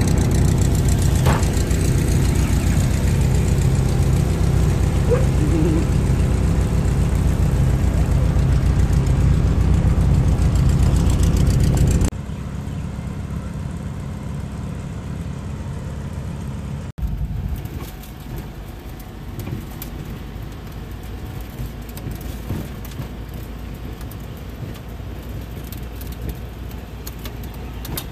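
Volkswagen Type 2 bus engines running, changing abruptly at two cuts: a loud, steady engine drone for about the first twelve seconds, then quieter engine and street sound for the rest.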